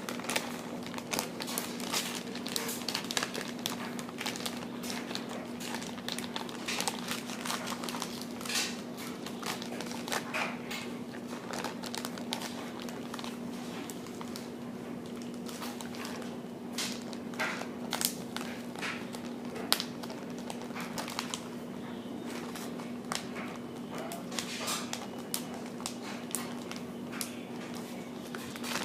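Slime being kneaded inside a zip-lock plastic bag: irregular crinkling and crackling of the plastic, over a steady low hum.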